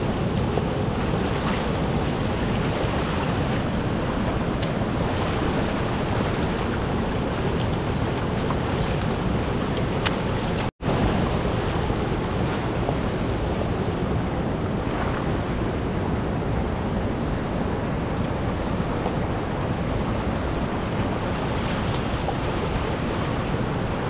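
Fast river rushing steadily over rocks, with occasional splashes as stones are lifted and set down in shallow water. The sound cuts out completely for a moment about eleven seconds in.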